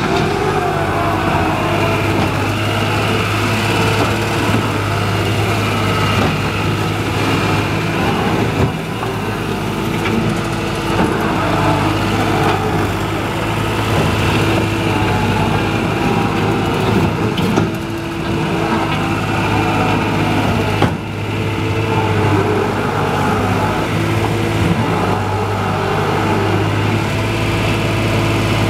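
New Holland LS190 skid steer's diesel engine running steadily, with a few brief dips in level and one sharp knock partway through.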